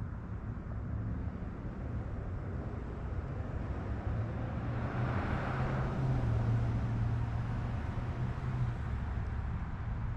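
Street traffic, with a vehicle passing that swells and fades about halfway through.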